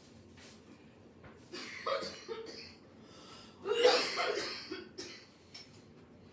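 A person sneezing twice, about two seconds apart; the second sneeze is the louder one.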